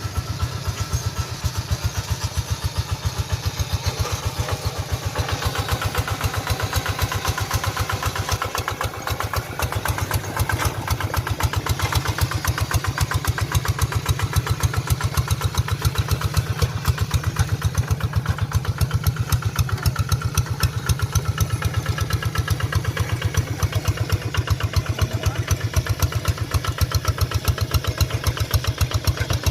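Rice-paddy hand tractor engine running steadily with an even, rapid putter of firing strokes, growing a little louder about ten seconds in.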